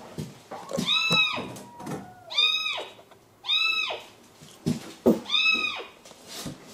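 A kitten trapped inside a wall meowing: four high-pitched cries about a second apart, with a pause before the last, and a few faint knocks.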